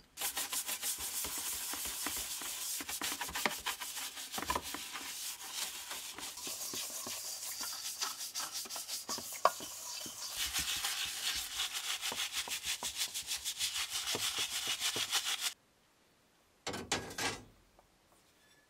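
A toothbrush scrubbing a copper radiator bowl in soapy water, with quick, even back-and-forth strokes. The scrubbing stops about three-quarters of the way through, and a brief burst of noise follows near the end.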